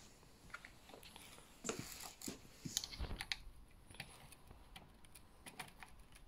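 Light, irregular clicks and taps of a small hex key and fingers handling a bicycle brake lever and its clamp bolt on the handlebar.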